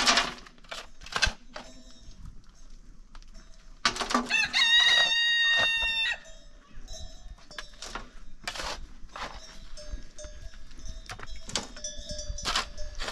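A rooster crows once, about four seconds in, a single call of about two seconds. Around it come short scrapes and chops of a shovel digging into dry, stony soil.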